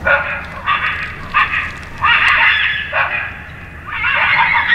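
Coyotes yipping and howling in a group chorus: several bursts of rapid, high, wavering yips and short howls, with brief gaps between them.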